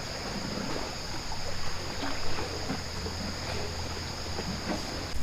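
Small waves lapping and trickling against a rocky shore, with irregular little splashes over a steady high-pitched hiss and a low hum.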